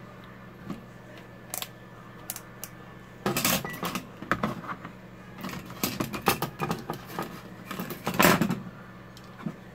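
Tools and small hard parts clicking and clattering as they are handled, a few isolated clicks at first, then a dense irregular run of clatter from about three seconds in, over a low steady hum.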